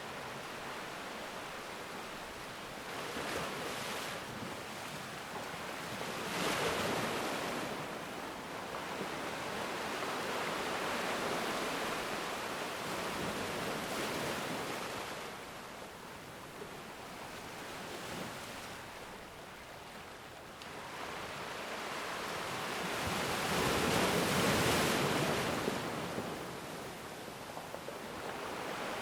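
Ocean waves breaking and washing on a shore, swelling and ebbing, with the loudest wave about three-quarters of the way through.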